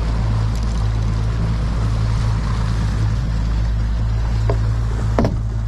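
A 300-horsepower outboard runs steadily at trolling speed, with a low even hum and water washing past the hull. There are two short sharp clicks about four and a half and five seconds in.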